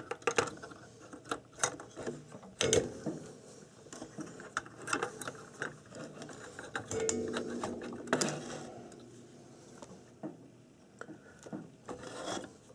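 Irregular clicks, rattles and scraping from a blue multi-turn potentiometer being wiggled and turned by hand in its metal mounting bracket on a circuit board, as it is worked loose for removal.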